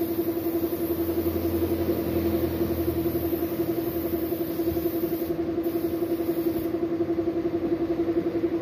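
Small air compressor running steadily with a rapid pulsing beat, under the high hiss of an air spray gun spraying paint onto a motorcycle wheel rim. The spray hiss breaks off briefly about five seconds in and stops about a second and a half later.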